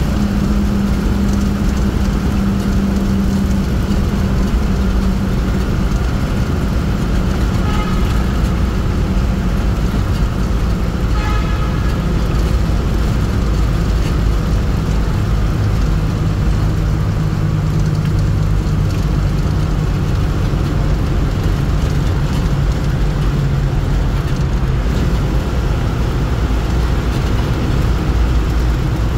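Steady engine and road noise of a vehicle driving along, its engine hum shifting slightly in pitch partway through. A horn sounds briefly twice, about 8 and 11 seconds in.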